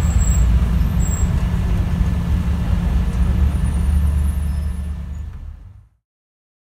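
Scania DC9 9-litre inline-six diesel of a Scania N94UD bus running under way, heard from inside the bus as a loud rumble, mostly low, with the noise of its leaking turbo. The sound fades out over the last second or so and stops.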